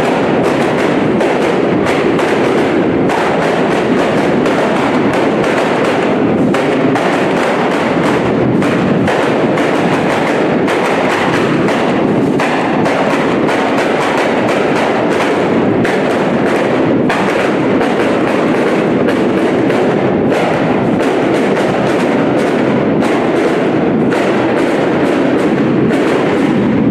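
Loud processional music driven by a steady drum beat, with sharp percussion strokes over a dense band sound.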